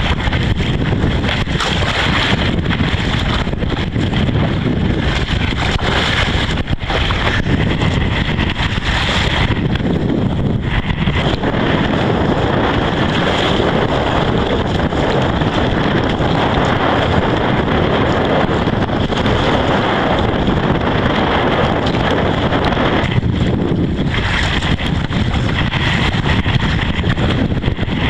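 Strong wind buffeting the microphone, with choppy water around a kayak.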